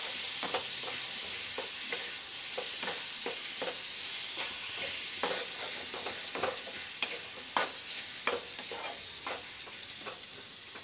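Metal spoon stirring and scraping a thick, sugary grated amla mixture in a steel pan, clicking and tapping against the pan about two or three times a second over a steady sizzling hiss as the mixture cooks down on the flame.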